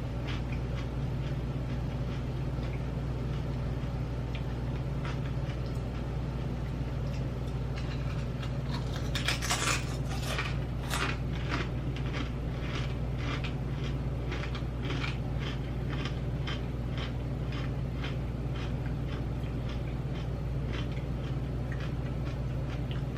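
Potato chips being bitten and chewed with the mouth close to the microphone: a burst of crunching about nine seconds in, then steady crunches a little under two a second, over a constant low hum.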